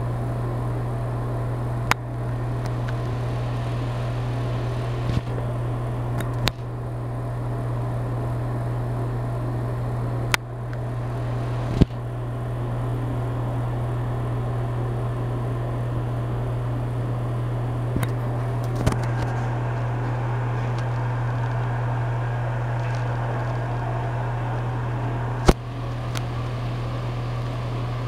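Broan ceiling exhaust fan running steadily: a low motor hum under a constant rush of air. A few sharp clicks stand out over it.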